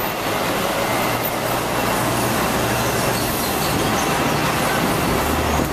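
Hong Kong double-decker electric tram running along its rails: a steady, loud rumble of wheels on track with a low hum beneath it.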